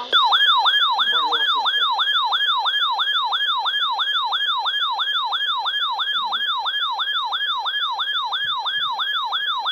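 Emergency alert attention tone: an electronic siren-like warble, loud and even, falling quickly in pitch and jumping back up about three times a second. It sounds the start of a new weather warning broadcast.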